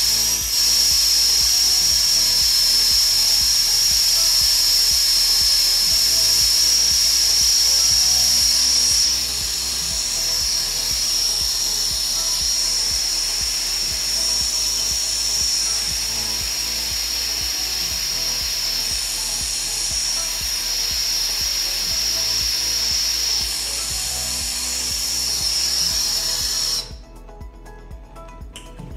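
Soldering torch flame hissing steadily as it heats bare copper pipe. It gets somewhat softer about a third of the way in, then stops suddenly near the end.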